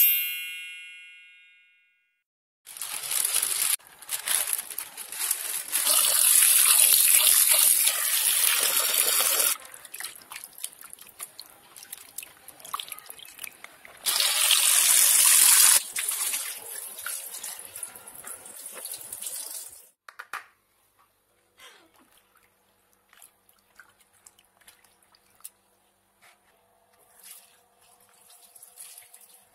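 A brief ringing chime dies away, then a tap runs hard into a bowl of water while raw fish pieces are washed, stopping and starting. Near the end it gives way to quieter splashes and drips as a hand rubs the fish in the water.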